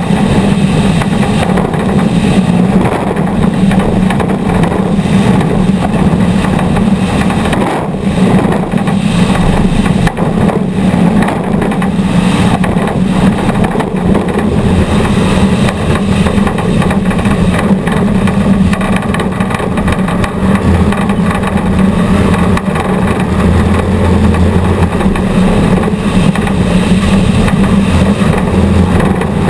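Off-road race vehicle's engine running hard at a steady, unchanging pitch, loud and close, with a constant noisy rush over it.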